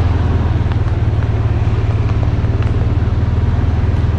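Small vehicle engine running steadily with a fast, even low putter.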